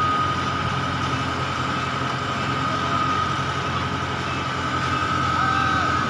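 Kubota DC70 combine harvester's diesel engine running steadily, with a steady high-pitched whine over the engine note.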